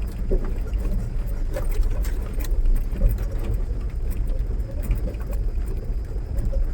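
Mahindra Bolero Pickup driving on a rough off-road track: a steady low engine and road rumble, with frequent short rattles and knocks scattered through it.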